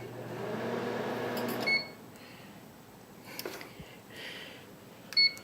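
Microwave oven running with a steady hum for about two seconds, then stopping, followed near the end by a single keypad beep.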